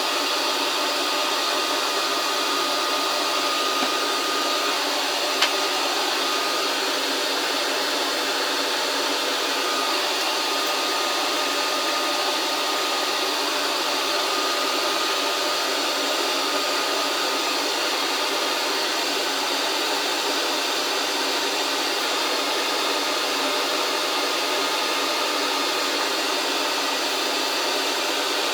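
Hot-air rework station blowing steadily, an even rush of air with a faint high whine, as used to heat a laptop GPU chip for removal or soldering. A single light click about five seconds in.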